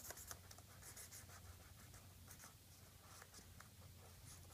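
Felt-tip marker drawing on paper: faint, scattered scratchy strokes.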